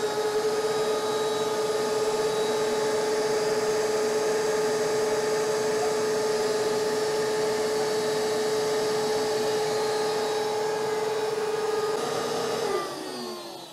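DeWalt compact router on a Piranha XL CNC running at a steady high pitch, with a shop dust collector running alongside, as the CNC carves a test piece. About a second before the end the router winds down, its pitch falling.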